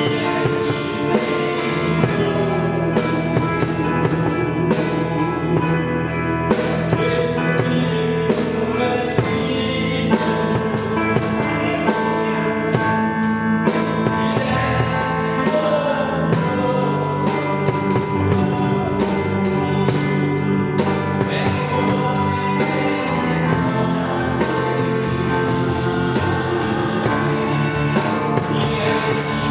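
Electronic keyboard playing a gospel worship song, with sustained chords and melody over a steady programmed drum beat.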